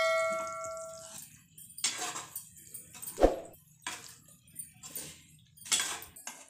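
Metal spoon stirring thick curry gravy in a metal kadhai, with scattered scrapes and knocks against the pan and one sharper clack about three seconds in. A bell chime rings at the very start and fades over about a second.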